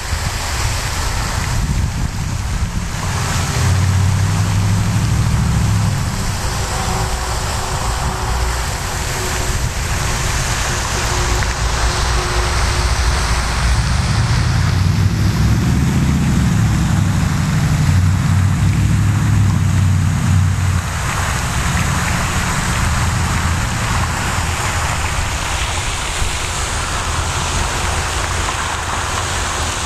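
Wind buffeting the microphone: a steady rushing with heavier low rumbling gusts about four seconds in and again from about fifteen to twenty-one seconds.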